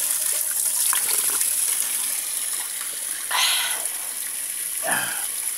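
Spring water running steadily out from among rocks, a continuous hiss. There is a brief louder burst about three and a half seconds in and another short noise near five seconds.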